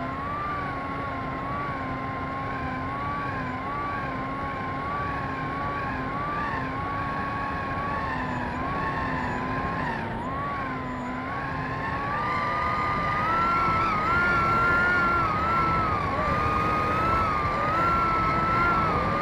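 Small RC plane's motor and propeller whining in flight, the pitch wavering up and down, with wind rushing over the onboard camera. About twelve seconds in the whine rises in pitch and gets louder as the throttle comes up.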